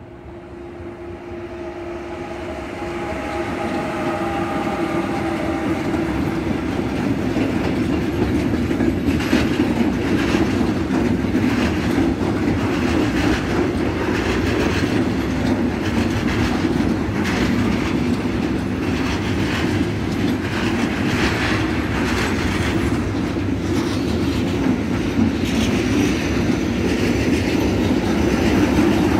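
Freight train hauled by a Bombardier TRAXX F140 AC1 electric locomotive (DB Cargo class 185) approaching and passing: a steady whine while the locomotive draws near in the first few seconds, growing louder. Then a long rake of hopper wagons rolls past with a steady rumble and the clickety-clack of wheels over rail joints.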